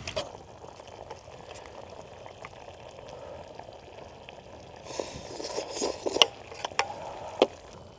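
A pot of soup simmering and bubbling. About five seconds in, kimchi is scraped and tipped into the pot, with a wet rustle and a few sharp clinks of a utensil against the pot.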